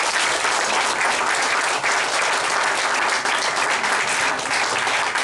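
An audience applauding: many hands clapping in a dense, steady stream, louder than the speech around it.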